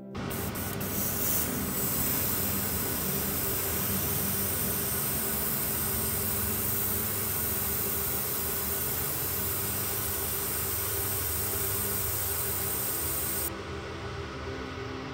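Airbrush spraying paint onto a small plastic model part, a steady hiss over the hum of a spray booth's extractor fan. The spraying stops near the end, leaving the fan running.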